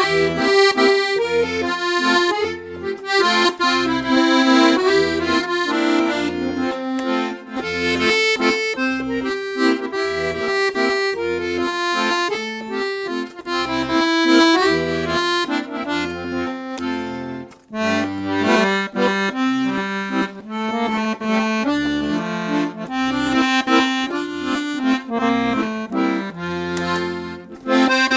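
Black Parrot piano accordion with three-reed LMM treble and 120-button bass playing a tune: a right-hand melody over regular, evenly spaced left-hand bass notes, with one brief break a little past halfway.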